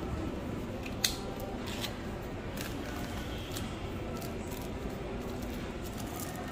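Paper and cardboard packaging of an Apple Watch box rustling and crackling as its pull-tab seal strip is torn away and the box is handled, with one sharp click about a second in.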